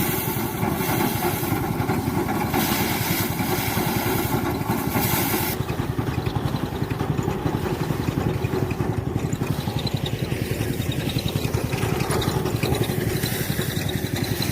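Small engine of a paddy harvesting machine running steadily with a fast, even pulse. A rushing hiss over it stops suddenly about five and a half seconds in.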